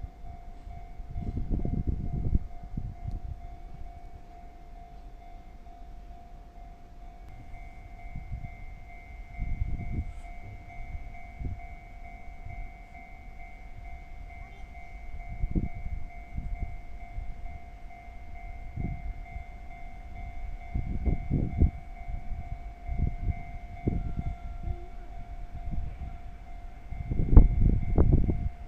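Japanese level-crossing warning bell ringing steadily without a break. Low rumbles come and go under it and are loudest near the end, fitting a train running past the crossing.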